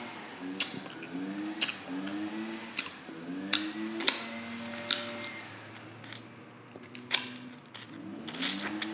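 Close-miked eating of sticky glazed pork ribs: sharp wet lip smacks and chewing clicks, with several short rising 'mmm' hums of enjoyment. Near the end comes a wet sucking noise as meat is pulled off a rib bone.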